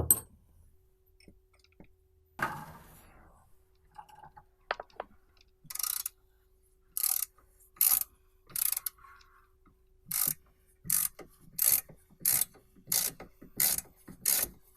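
Ratchet wrench clicking in short strokes, driving a threaded repair brake-caliper guide pin into the steering knuckle. After a scrape about two seconds in, the clicks come irregularly and then settle into a steady rhythm of about one and a half a second.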